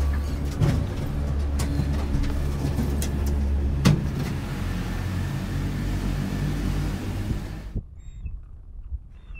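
Gondola lift station machinery running with a steady low hum and rumble, with scattered knocks and one sharp clunk about four seconds in. Near the end it gives way abruptly to the much quieter sound inside the cabin riding the cable.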